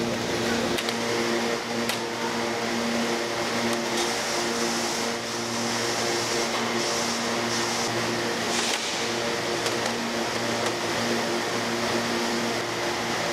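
Steady hum of food-factory machinery and ventilation: a low droning tone with a hiss over it, and a few faint clicks.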